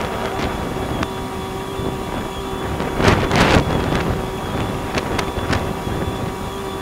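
Boat engine running with a steady hum while under way, with wind on the microphone and a louder rush of wind about three seconds in.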